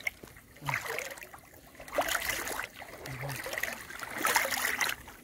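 Muddy pond water sloshing and splashing around people wading waist-deep, coming in several uneven surges.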